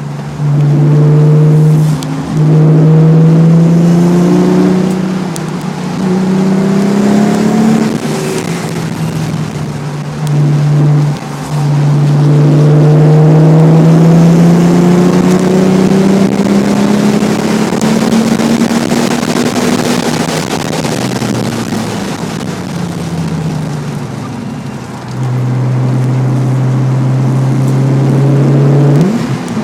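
Nissan 300ZX with a Specialty Z aftermarket exhaust driven hard on track: the engine note climbs through the revs, drops back sharply at each upshift about 2, 11 and 25 seconds in, and falls away in long stretches off the throttle between the pulls.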